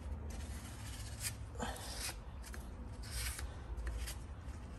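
A paper towel rubbing and wiping dirt out of an electric parking brake actuator, in a few short, faint scuffs over a low steady hum.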